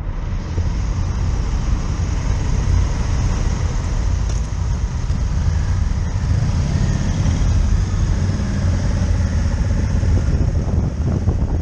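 Honda Africa Twin adventure motorcycle's parallel-twin engine running at low road speed, a steady low rumble, with other adventure motorcycles riding close by.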